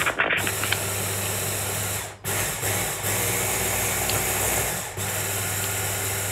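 Hand blender with a chopper bowl attachment running in pulses, chopping a wild garlic and herb sauce. The motor cuts out briefly about two seconds in and again about five seconds in, then starts again each time.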